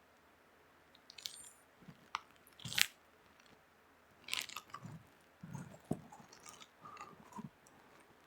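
Faint, irregular clicks and small knocks, about a dozen spread over several seconds, the sharpest about three seconds in.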